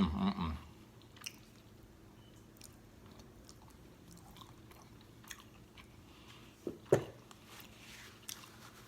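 A person biting and chewing food close to the microphone, with scattered small crunchy clicks and smacks. There are louder bites at the very start and about seven seconds in.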